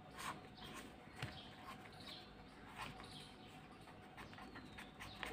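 Faint scratching of a ballpoint pen writing on paper, with faint bird chirps in the background.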